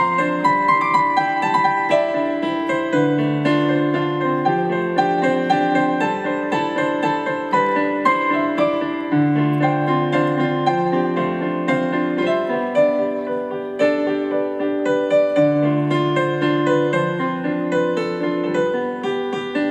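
Electronic keyboard playing a slow piece in a piano-like sound: chords over held bass notes that change every two or three seconds, with single melody notes above.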